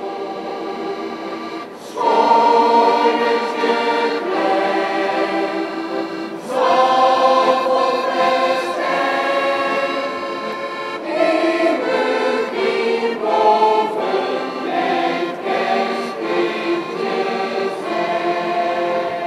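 Mixed choir of men's and women's voices singing a sustained song, with two accordions accompanying. The singing swells louder about two seconds in and again about six and a half seconds in.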